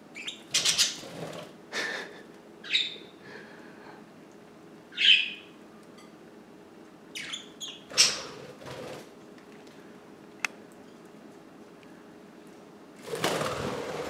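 Budgerigars giving short chirps and squawks between bursts of wing flapping, with a longer flurry of wingbeats near the end as the birds take off.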